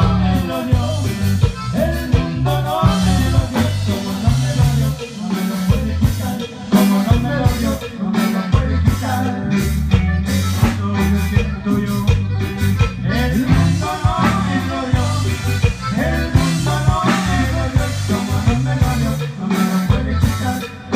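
A live conjunto band playing a song, with a button accordion leading over guitars and a steady beat.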